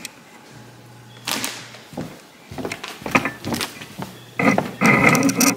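Footsteps going down wooden stairs: a series of separate thuds, then a louder, denser stretch of noise near the end.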